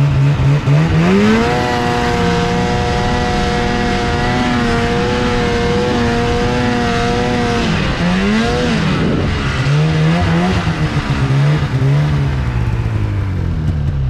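Snowmobile engine revving up about a second in and running at high revs, easing off around eight seconds in, then revving up and down a few times before settling lower near the end.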